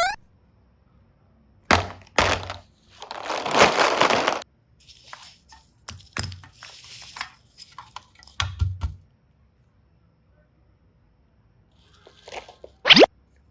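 Plastic toy suitcase boxes being handled and opened: sharp clicks and snaps, with a stretch of crackling about three seconds in and more scattered clicks after. Near the end comes a quick rising whistle-like tone.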